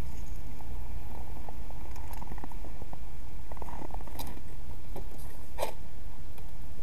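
Wind buffeting the microphone with a steady low rumble, over a few sharp clicks and rustles of gear being handled in a plastic sled.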